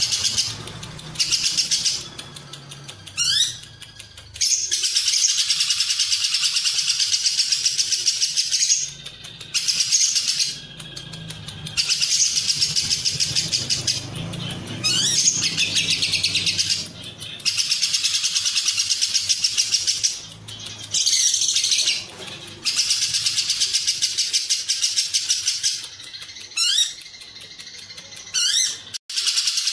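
Lovebird singing its long ngekek song: bouts of fast, continuous high chatter lasting several seconds each, broken by short pauses and a few quick rising notes.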